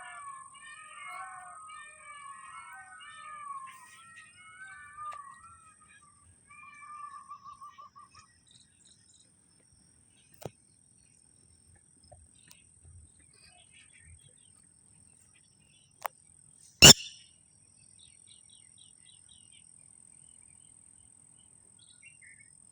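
Red-wattled lapwing calling again and again for about the first eight seconds, the calls ending in a quick run of short even notes; then mostly quiet, with a loud sharp knock about 17 seconds in.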